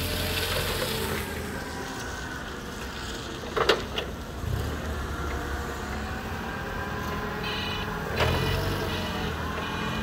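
Propane-fuelled engine of a Yale GLP050 forklift running as the truck drives about. A sharp knock comes a little under four seconds in, and another about eight seconds in.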